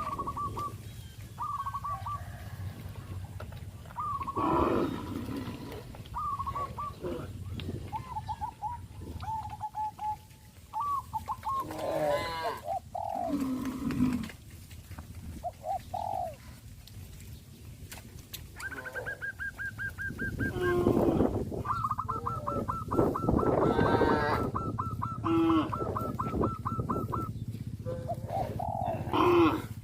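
Cows mooing several times among calling birds, including cooing doves, with a rapid chattering trill in the second half.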